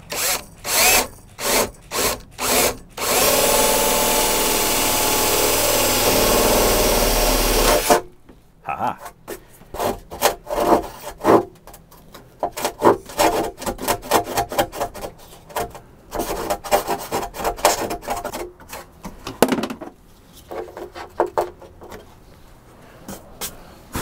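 Cordless drill with a long bit boring a hole: several short trigger bursts, then running steadily for about five seconds until it stops suddenly. A small handsaw then cuts out the switch opening with quick back-and-forth rasping strokes that fade out near the end.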